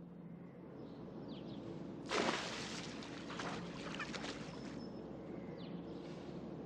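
Outdoor ambience with a steady low hum and a few short falling bird chirps. A loud rush of noise starts suddenly about two seconds in and dies down near five seconds.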